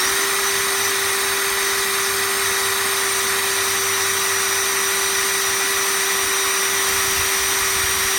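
Electric drill running at a steady speed, boring a hole through the metal connector and beam, with a constant motor whine.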